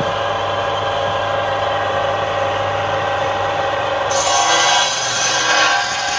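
Bench-mounted circular saw running with a steady motor hum and blade whine. About four seconds in, the blade starts cutting a block of wood, and the sound turns louder and harsher, with a high-pitched rasp.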